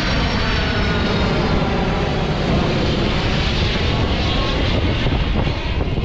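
Engines of a large four-engine military jet transport flying low overhead as it banks, a loud, steady rumble with thin whining tones that slowly shift in pitch.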